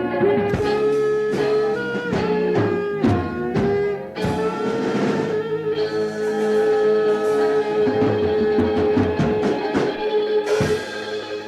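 A band playing a song with drums and guitar, one note held for several seconds through the middle, the loud playing easing off near the end.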